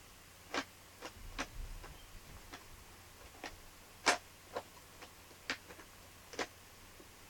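Irregular sharp clicks and taps of a plastic item being handled, about ten in all, the loudest about four seconds in.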